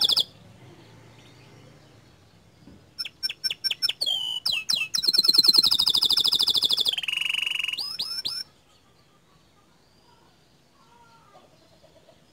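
Domestic canary in full song: after a brief pause, a loud phrase of quick sharp notes runs into a fast high trill, then a lower buzzy roll and a few rising whistles, stopping abruptly a little past the middle. A previous phrase cuts off right at the start.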